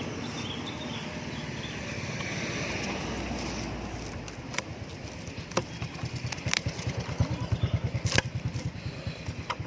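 An engine running with a fast, low pulsing that starts about halfway through and grows denser, with several sharp clicks over it.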